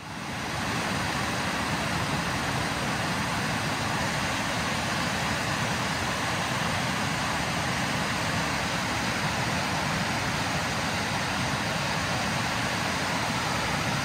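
Steady rushing noise, even and unbroken, spread across low and high pitches.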